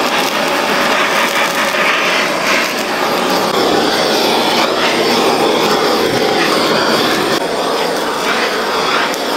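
Handheld butane gas torch burning with a steady, loud hiss as its flame is played over raw lamb ribs to singe off the wool.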